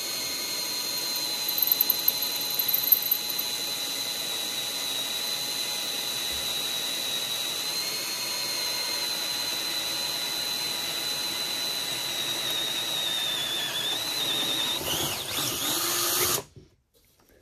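Cordless drill running steadily with a high whine as it bores a bolt hole through an oak deck board into the welded metal frame beneath, with a few sharp knocks a couple of seconds in. The pitch wavers near the end and the drill stops suddenly about 16 seconds in.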